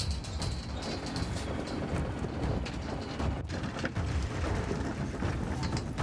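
Fishing boat's machinery running: a rapid, irregular mechanical clatter over a steady low rumble.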